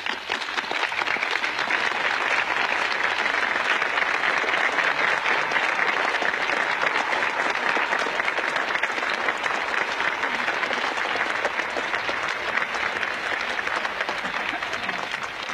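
Audience applauding: a long, steady round of clapping that starts at once and eases slightly near the end.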